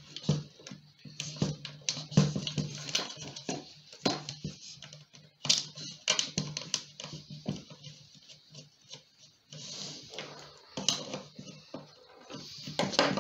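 Socket ratchet clicking in quick, uneven runs of ticks as the 8 mm bolts holding the fuel rail to the plastic intake manifold are tightened, with handling knocks on the plastic.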